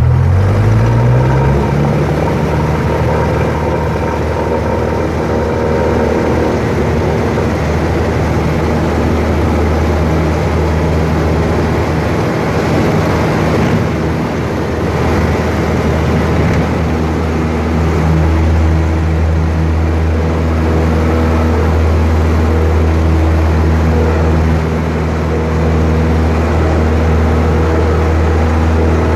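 Cessna 172's piston engine and propeller heard from inside the cabin, rising in pitch over the first two seconds as power comes up for takeoff. It then holds a steady, loud drone through the takeoff roll and climb-out.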